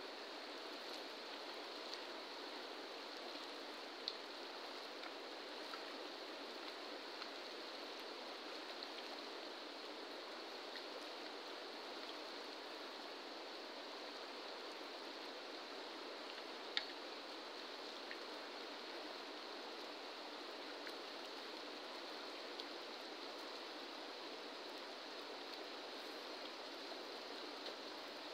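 Fast-flowing river water rushing steadily, with a few faint clicks.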